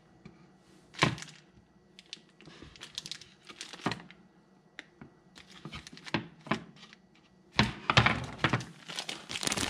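Kitchen knife slicing a block of Colby Jack cheese on a bamboo cutting board: scattered sharp taps and knocks of the blade against the wood, the loudest about a second in, with a quick run of taps near the end.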